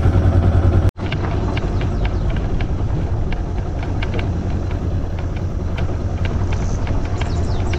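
Yamaha Ténéré 250 sidecar motorcycle's single-cylinder engine idling with a steady pulsing hum for under a second, cut off suddenly. Then a low outdoor rumble with irregular light crunching ticks, two or three a second.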